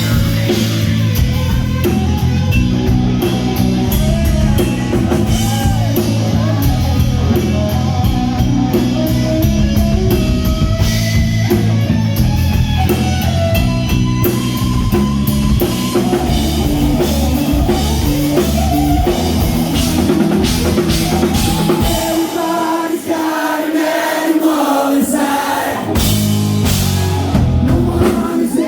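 A rock band playing live, with drums, guitars and a singer. About 22 seconds in, the bass and kick drum drop out for a few seconds, then the full band comes back in.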